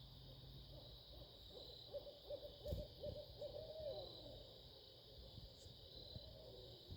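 Barred owl hooting: a quick run of short hoots, then a longer hoot that rises and falls slowly away, over a steady high-pitched background hum. A short thump sounds partway through.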